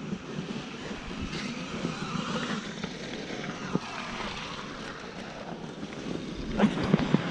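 Motocross bike engine idling unevenly while stopped, with a few louder bursts near the end.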